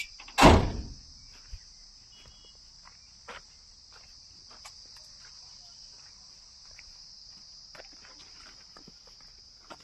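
Insects chirring steadily at a high pitch. A single loud thump comes about half a second in, followed by a few faint scattered clicks.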